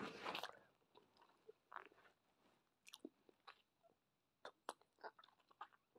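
Faint wet clicks and smacks of a large wad of Hubba Bubba bubble gum being chewed, scattered irregularly, after a short breathy rush at the start.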